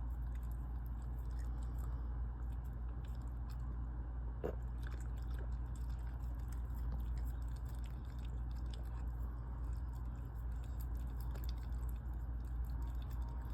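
A small dog licking and eating ice cream, with many small wet licking and smacking clicks, over a steady low hum.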